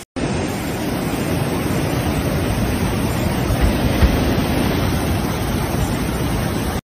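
Floodwater of a swollen, muddy river rushing past: a loud, steady rush of churning water.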